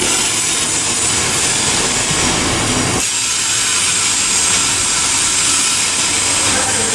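Cement tank wagons of a freight train rolling past: a steady hissing rush of wheels on rail, its lower part thinning about three seconds in.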